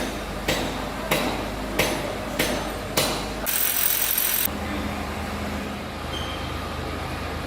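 Sharp metallic knocks, five of them at an even beat about every 0.6 s, then a hiss lasting about a second, then a steady low machine hum.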